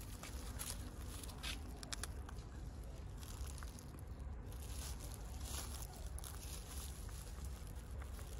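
Faint crackles and soft clicks of a baby monkey tearing and biting crusty baguette, over a steady low rumble.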